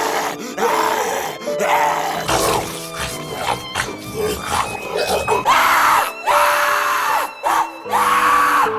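Zombie vocal sound effects performed by voice actors, a string of growls and screams, the louder ones coming in the second half, set over background music with steady held notes.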